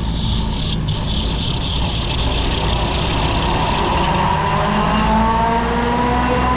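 Gyroplane engine and propeller running steadily, with air rushing across the microphone; the engine pitch rises in the second half as the power comes up.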